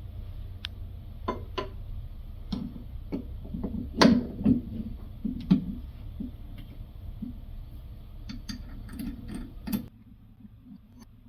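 Irregular small clicks and taps of metal and plastic faucet parts as the single-handle kitchen faucet's lever handle is fitted back on and its holding screw is tightened, with a couple of louder knocks about four seconds in.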